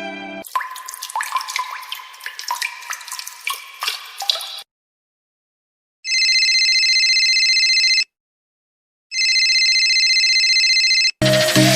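Water dripping and plinking in a quick, busy run for about four seconds. Then, after a short silence, a telephone rings twice, each ring a steady electronic trill about two seconds long.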